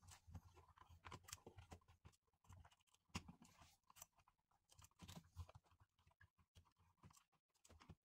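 Near silence with faint, scattered clicks and rustles: wires being pushed back into a wall electrical box and a single-pole light switch pressed into place by hand, the clearest clicks a few seconds in.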